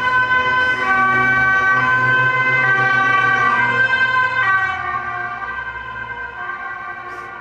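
Emergency vehicle siren passing by, stepping back and forth between two pitches. It is loud at first and fades away over the second half.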